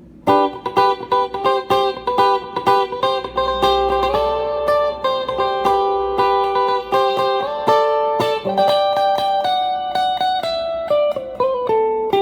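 Clean electric guitar, a Fender Duo-Sonic HS, played through an amp with a little reverb: quick picked notes and chords that ring on between attacks.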